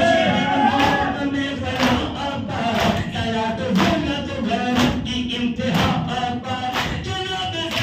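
Men chanting a noha (Shia lament) together, with rhythmic matam: hands striking chests in unison about once a second, each strike a sharp slap over the singing.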